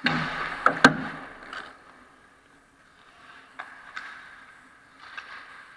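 Ice hockey skates scraping hard on the ice close to the goal, with two sharp clacks of stick and puck a little under a second in. Fainter stick taps and skating follow in the arena.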